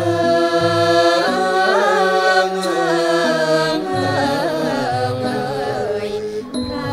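Women's chorus singing a slow Thai song of royal praise in unison, with a Thai classical ensemble accompanying; long held notes bend into gliding ornaments, then a wavering melodic line.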